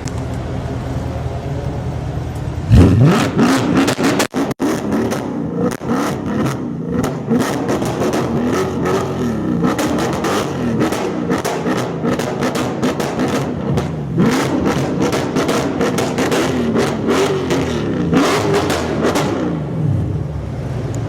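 Mercedes-AMG C63 engine with an iPE valvetronic exhaust idling, then from about three seconds in revved hard again and again, the revs rising and falling with sharp pops between them. It settles back to idle near the end.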